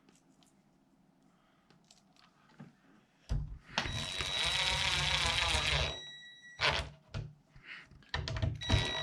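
Power drill-driver driving a hinge screw into the door frame: the driver runs for about two and a half seconds with a steady whine, then a few short bursts follow. The sound is the screw biting into the wood.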